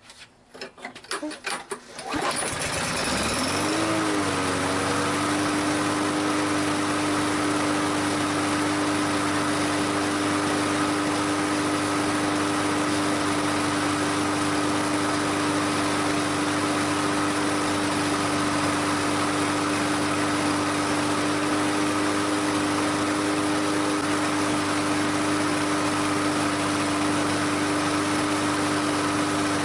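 Toro Recycler push mower's 150-cc engine starting up about two seconds in after some rattling, its pitch rising briefly and then settling into a steady run.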